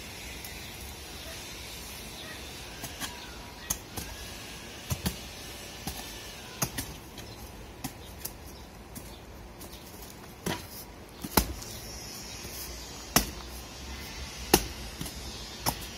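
Irregular chopping blows of a hand tool cutting into exposed tree roots and packed earth: about a dozen sharp knocks at uneven intervals, the loudest in the second half.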